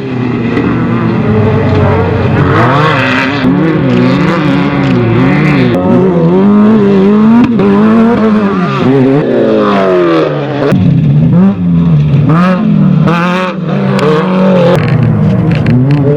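Engines of several off-road race vehicles running hard, their loud notes rising and falling over and over as the drivers rev up and back off, with two or more engines overlapping at times.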